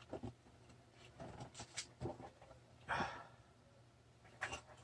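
Faint handling noises: soft rustles and a few light clicks as FPV goggles are handled, with one short breath-like puff about three seconds in.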